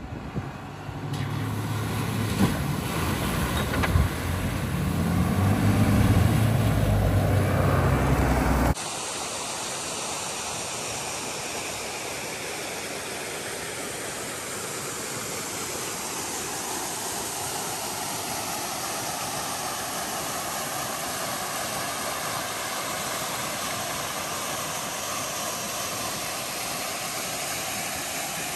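A four-wheel-drive vehicle's engine running, rising in pitch and loudness about five seconds in. After a sudden cut near nine seconds it gives way to the steady rush of a small waterfall cascading into a rock pool.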